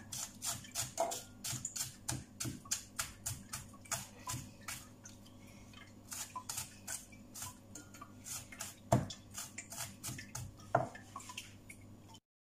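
Kitchen knife chopping onion on a cutting board: a quick, even run of taps, about four a second, with a couple of louder knocks near the end.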